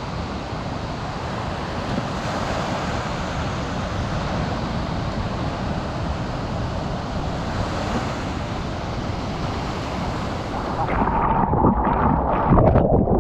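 Ocean surf washing on the beach, with wind noise on the microphone. About eleven seconds in it gives way to louder, choppy water sloshing and splashing close against the microphone at water level in the surf.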